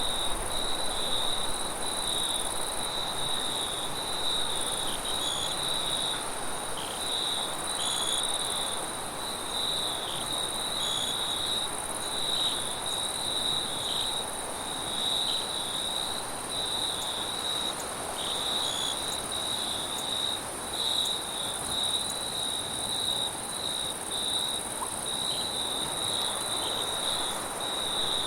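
A chorus of crickets chirping without pause, a steady high-pitched trill with an even higher hiss above it.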